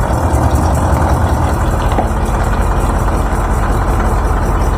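Heavy vehicle engine running at a steady idle, a low even rumble.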